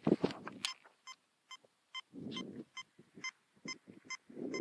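Fisher F2 metal detector giving short, repeated beeps about twice a second as the coil is swept back and forth over a buried target. The steady, repeatable response marks a solid target.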